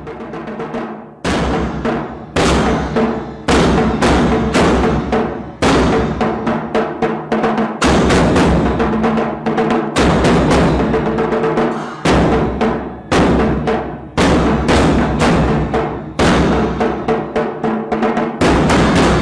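Intro music built on heavy, booming drum hits about once a second over sustained low tones, fading in at the start.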